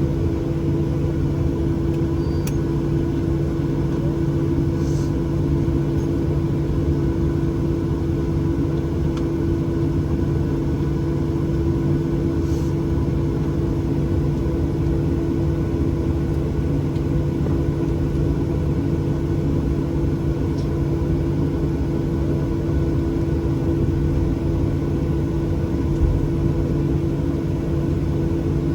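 Steady cabin drone inside a Boeing 737-800 with its CFM56 engines running: an even low rumble with a constant two-tone hum that holds level throughout, and a few faint ticks.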